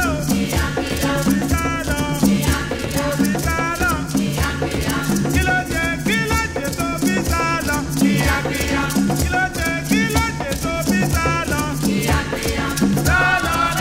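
Soundtrack music with a steady beat: a shaker or rattle ticking fast and a wavering melody over low drum hits.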